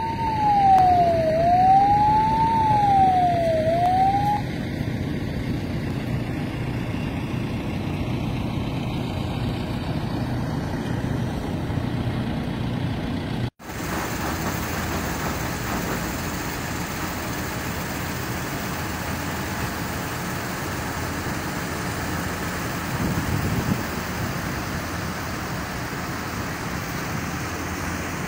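A siren wails up and down, each sweep about a second long, over a steady low rumble of tractor engines running, and stops about four seconds in. After a sudden break, the steady rumble of running tractors carries on.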